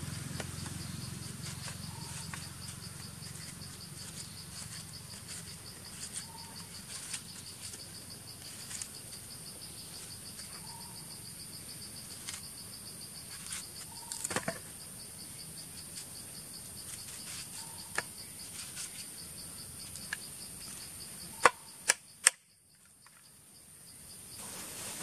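Steady chorus of insects chirping in a fast pulsing rhythm, with scattered sharp clicks and taps from a knife slicing watermelon and chunks dropping into a tray. The loudest clicks come near the end, and then the sound briefly cuts out.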